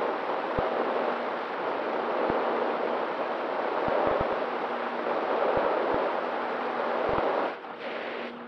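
Airflow rushing over an in-flight RC plane's onboard camera, with the steady hum of its electric motor and propeller underneath. The sound dips in level for a moment near the end.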